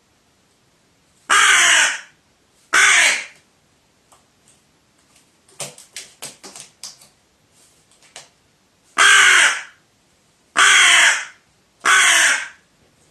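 Pet crow giving loud, harsh caws, five in all: two near the start and three in quick succession near the end, with a run of quick, softer short calls in between. The crow is agitated and angry, reacting to being shown a wild bird's feathers.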